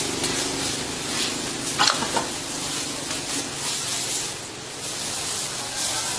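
Hay rustling and scuffing as a baby elephant shifts its weight on a man's lap in a straw bed, with a couple of brief sharper scuffs about two seconds in.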